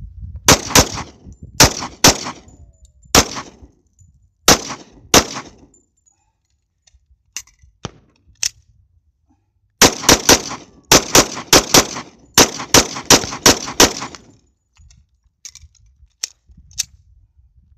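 Taurus 24/7 G2 .45 ACP full-size pistol firing. It starts with about seven shots spaced half a second to a second apart, then a pause of a few seconds with a few faint clinks, then a faster string of a dozen or so shots in about four seconds.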